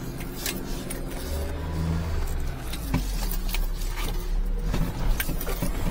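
Engine and road noise of a right-hand-drive van driven slowly, heard from inside the cab, with a few light clicks and rattles.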